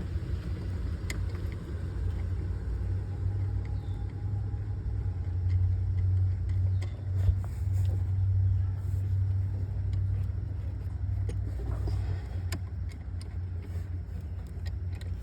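A steady low rumble with a few light metallic clicks of hand tools working at a car battery terminal.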